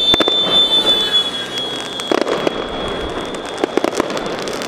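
Fireworks going off: a steady high whistle that sinks slightly in pitch over the first second or so, with sharp bangs and crackling pops that come in clusters about two seconds in and again near four seconds.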